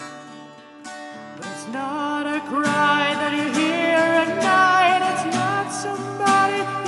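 Music: a sung vocal line over acoustic guitar, quieter at first and swelling after about a second and a half into long held, wavering notes.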